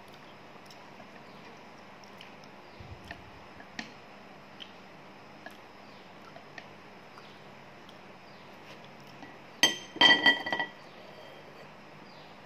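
Wooden chopsticks clicking lightly against a ceramic plate, then near the end a quick run of loud clinks on the plate that ring on briefly.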